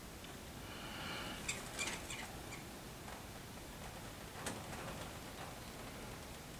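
Faint scrapes and a few light clicks of fingers handling and smoothing a soft, freshly cast clay figure, over a steady background hiss.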